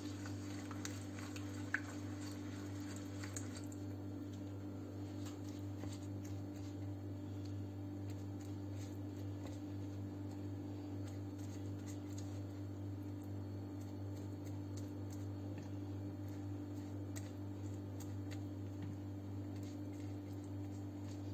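Faint wet squishing and soft dabs of a silicone pastry brush, first stirring beaten egg into a yogurt-and-oil sauce in a bowl and then brushing it over raw yufka pastry, with a small click about two seconds in. A steady low hum runs underneath.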